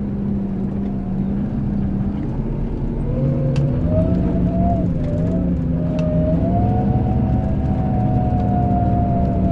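Scania K380 IB coach's diesel engine running. Its pitch rises about three seconds in as the engine picks up revs, then holds steady at the higher note.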